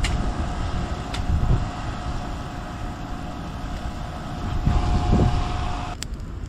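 Wind buffeting the microphone: a steady low rumble with a faint constant tone above it, cutting off about six seconds in.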